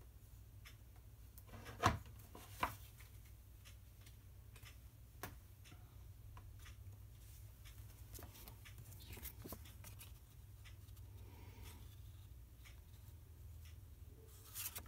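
Quiet handling of craft supplies and card stock on a table: a few sharp taps and knocks, the loudest about two seconds in, with soft rustling and shuffling of paper in between, as card base is searched for and sorted.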